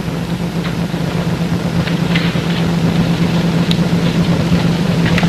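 Steady low hum with hiss, carrying a few faint clicks. This is the background noise of an old kinescope soundtrack.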